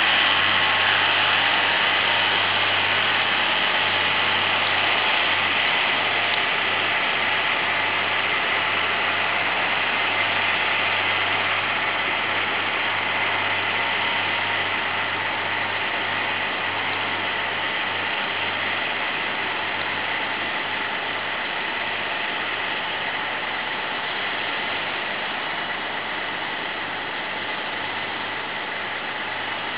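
Massey Ferguson 6490 Dynashift tractor's six-cylinder diesel engine running steadily under load while pulling a mounted reversible plough through dry soil. The sound grows gradually fainter.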